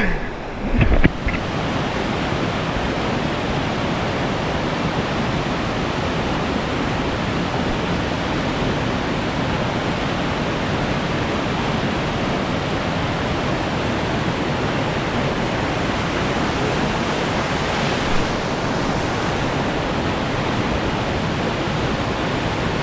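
Whitewater rapids rushing, a steady, even roar of fast water. A couple of short thumps sound about a second in.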